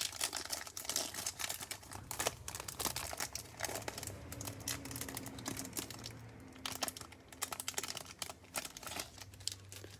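Plastic wrapper of a trading-card pack being crinkled and torn open: a dense, irregular run of small crackles.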